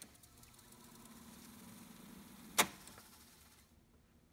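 Sony TC-730 reel-to-reel tape deck spooling in fast forward with a steady low hum. About two and a half seconds in, a transport key clicks sharply and the hum dies away as the reels stop.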